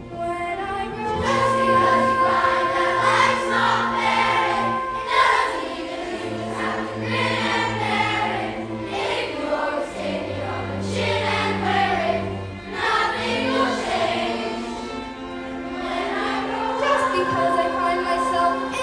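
Ensemble music of sustained, slowly shifting chords over a held low bass line.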